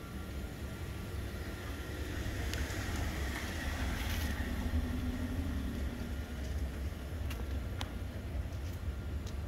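A long sliding gate rolling along its ground track, a steady low rumble with a few light clicks.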